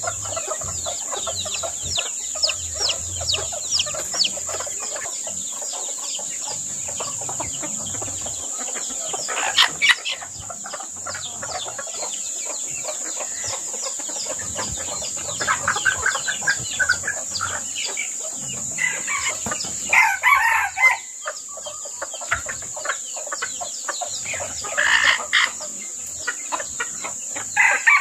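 Wild chickens clucking and roosters crowing, with many short, quick calls and louder bursts of calling about 10, 16, 20 and 25 seconds in.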